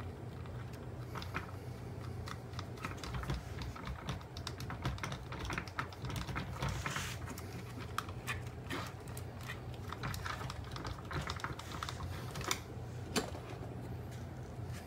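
A hand Phillips screwdriver drives screws into the plastic housing of a Shark Ion robot vacuum, making many small irregular clicks and taps of metal on plastic over a steady low hum.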